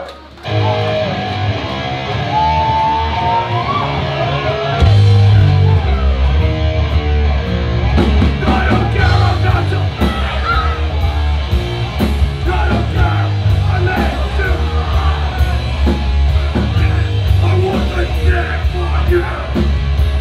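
Live heavy rock band playing loud and distorted. Guitar starts alone with bending notes, then drums and bass crash in about five seconds in, with a vocalist yelling over the band.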